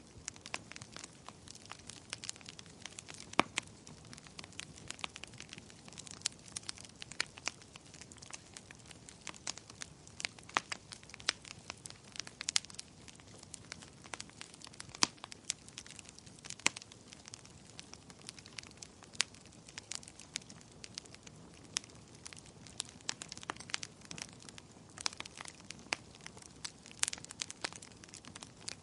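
Wood fire crackling: irregular sharp pops and snaps, several a second, over a soft low rush of burning.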